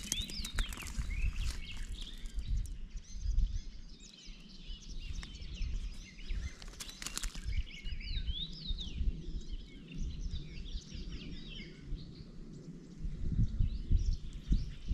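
Songbirds chirping and singing, many short calls, over a low rumbling noise that grows louder near the end. A sharp click about seven seconds in.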